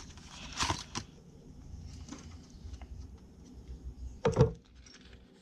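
Hands handling a cardboard tool-set box and a plastic-wrapped pouch of punches: brief rustles and scrapes about half a second and a second in, and a louder rustle about four seconds in.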